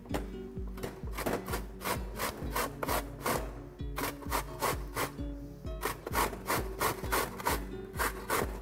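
Carrot being grated on a stainless steel four-sided box grater: a steady run of rasping strokes, about three a second.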